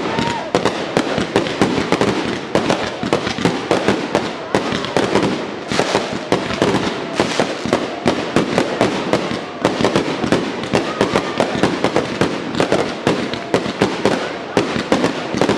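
Dense aerial fireworks barrage: many shells bursting and crackling in rapid succession, several bangs a second without a pause.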